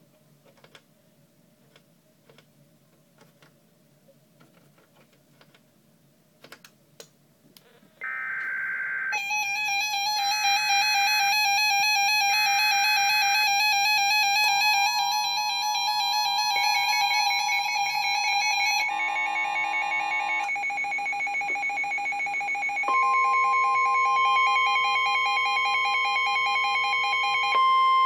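A SAGE ENDEC emergency alert unit sounding an EAS tornado warning. After faint clicks, three short buzzing data bursts of the alert header start about eight seconds in. Steady, overlapping electronic alert tones follow and change pattern twice.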